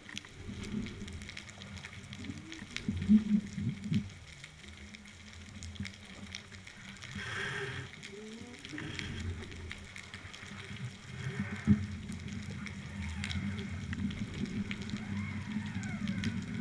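Underwater sound picked up by a submerged camera: a steady low rumble with a few sharp knocks, and short gliding tones about halfway through and near the end.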